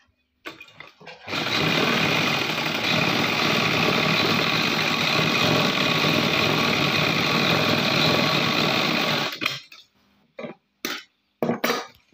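Roxy sewing machine running steadily for about eight seconds as it stitches a folded trouser hem, then stopping abruptly. A few short clicks follow.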